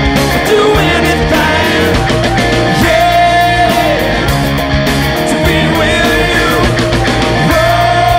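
Background rock music: a sung vocal over guitars and a steady beat.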